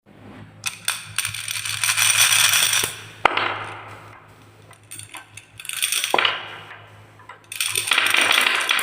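Marbles rolling and clattering down a marble run in three bursts of rattling, with two sharp clicks in the quieter gaps between them.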